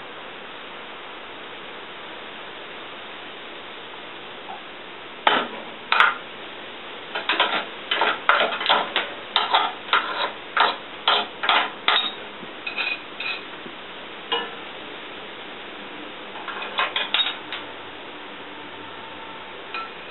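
Metal-on-metal clinking and tapping from tools working on crawler running-gear parts: a run of sharp, irregular strikes about two a second, then a few scattered clinks, over a steady hiss.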